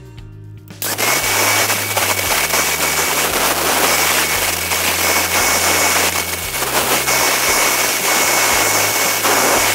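A power grinder's abrasive disc grinding a small steel part, starting about a second in: a loud, steady grinding noise with a thin high motor whine.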